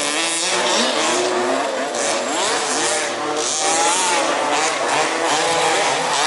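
Several 1/5 scale off-road RC cars' small two-stroke petrol engines racing together, their pitches rising and falling as they rev and back off through the corners.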